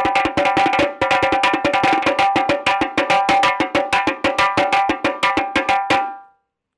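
Parai frame drum beaten in a fast, even rhythm with two sticks, one thin and one thick, its skin head ringing on every stroke. The playing stops with a last ringing stroke about six seconds in.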